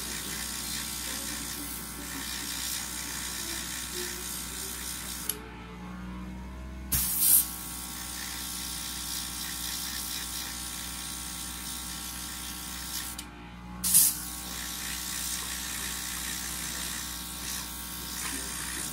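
Airbrush spraying paint: a steady hiss of air over the hum of a small airbrush compressor. The air cuts off twice, around five and thirteen seconds in, and each time comes back with a short loud burst as the trigger is pressed again.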